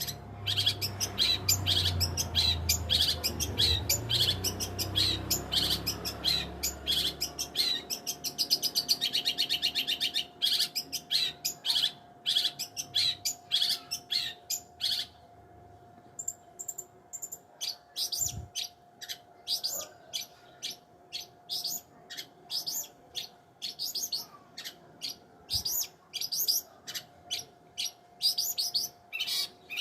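Long-tailed shrike (cendet) singing a long, fast string of short, sharp high notes, densest in the first half, with a short break about fifteen seconds in.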